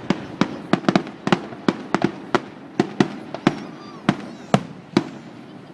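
Fireworks going off in quick succession: a rapid string of sharp bangs, about three a second, with a faint whistle among them.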